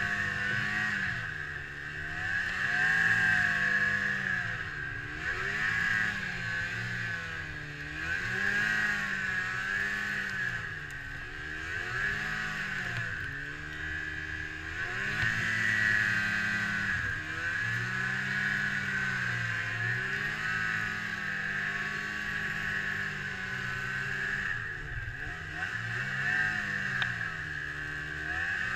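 Ski-Doo MXZ 600 snowmobile engine revving up and falling back over and over, every couple of seconds, as the sled ploughs through deep powder snow. A steady high whine runs underneath.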